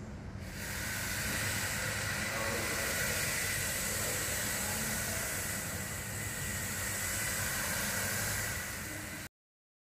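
Steady rushing, hissing water in a polar bear pool, with a low rumble underneath. It swells about half a second in and cuts off abruptly near the end.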